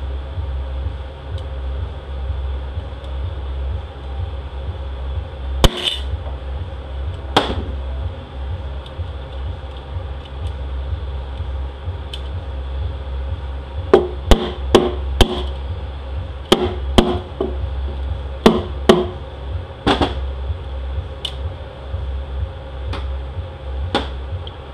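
Mallet taps on a 68RFE transmission's front pump and bellhousing, sharp and separate: two taps in the first third, a quick cluster of taps a little past halfway, then more spaced taps. A steady low hum sits underneath.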